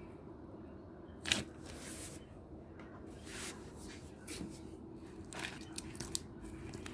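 Yellow clear slime being handled, pressed and stretched by hand, giving a string of small sticky clicks and crackles, with a few sharper pops about a second in and again near the end.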